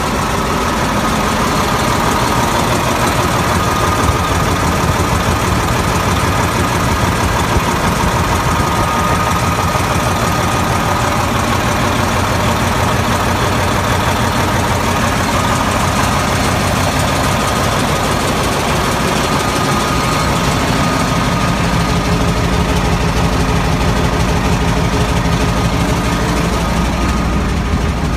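Diesel engine of a Morbark 1300A tub grinder running steadily at idle, with a steady high whine over the engine note.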